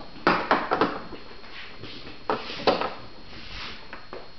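Plastic shapes knocking and clacking against a plastic shape-sorter activity table: a quick cluster of clacks in the first second, then two more about halfway through.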